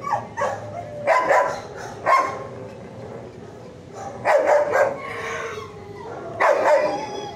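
Dogs barking in a shelter kennel, in about five short bursts a second or two apart.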